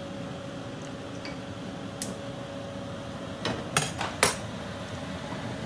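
Metal kitchen tongs clinking against a granite countertop: one sharp click about two seconds in, then a quick cluster of three or four knocks, the last one ringing briefly.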